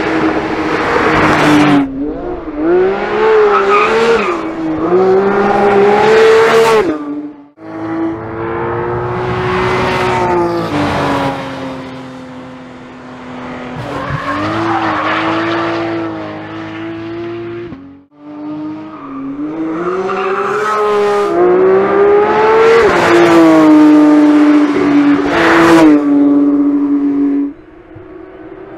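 Porsche 911 GT3's naturally aspirated 4.0-litre flat-six at high revs, its note climbing and dropping in pitch again and again. It comes as three loud stretches of driving, each cut off abruptly, about a quarter and about two-thirds of the way through.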